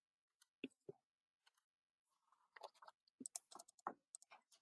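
Faint clicking of a computer mouse and keyboard: a couple of clicks about a second in, then a quicker run of clicks in the second half.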